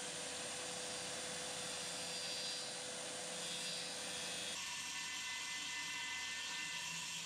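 Circular saw running through a sheet of T1-11 plywood siding in a long cut, the motor whining steadily under the noise of the blade in the wood. About four and a half seconds in, the blade clears the sheet and spins freely with a cleaner, steadier whine.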